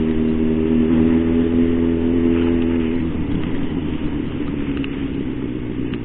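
Yamaha XJ6's 600 cc inline-four engine running at a steady speed, then the throttle is closed about halfway through and the engine note drops and turns rougher as the bike slows. Wind and hiss from tyres on the wet road run underneath.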